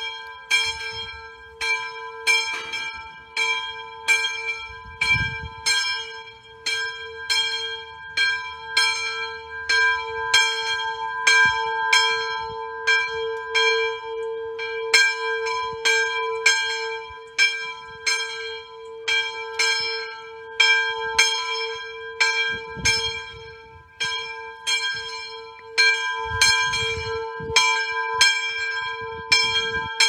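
Church bell rung by hand, struck steadily about twice a second, with its tone ringing on between strokes.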